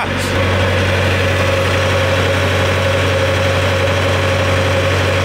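Engine of a JLG 400S boom lift idling steadily just after a cold start.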